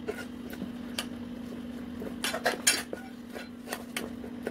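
Metal spoon stirring thick dough in a stainless-steel bowl, scraping and clinking against the sides, as rice flour is mixed into hot jaggery syrup for adhirasam. There are scattered clinks, with a quick run of them about two and a half seconds in, over a steady low hum.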